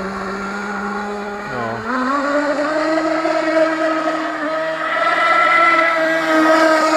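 15cc glow (methanol) engine of an RC boat running at high revs: a steady whine that drops sharply in pitch about a second and a half in, then picks up to a higher, louder steady note. It sounds smooth, hardly like a methanol engine.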